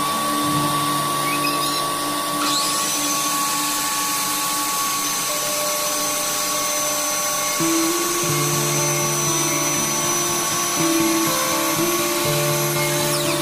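A power tool's high-pitched motor spins up about two and a half seconds in, runs steadily, and winds down near the end, over background music.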